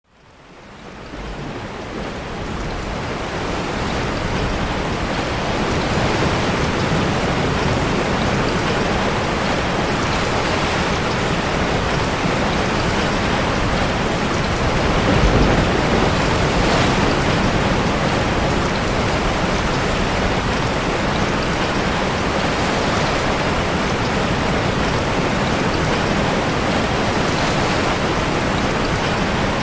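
Heavy rain and ocean waves breaking in a sea cave: a dense, steady wash of water noise that fades in over the first few seconds, with a brief swell about halfway through.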